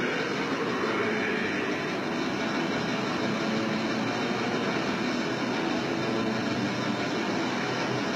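Extreme metal band playing live: heavily distorted electric guitar and fast drumming blurred together into a dense, steady wash of noise on a lo-fi recording.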